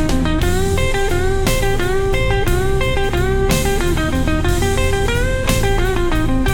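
Instrumental blues music: electric guitar playing bending lead notes over a steady drum beat and bass.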